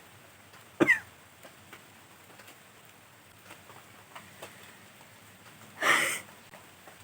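A person's short, sharp double throat sound like a cough about a second in, then a half-second noisy rush of breath through the nose near the end, with faint small ticks between. No sneeze comes.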